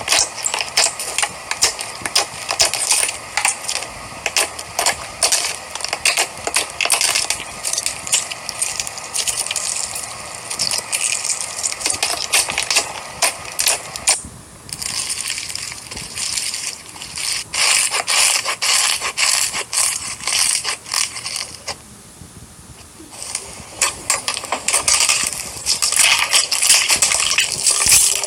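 Slime being worked by hand: dense, irregular crackling, popping and squishing clicks, with a brief quieter lull about 22 seconds in.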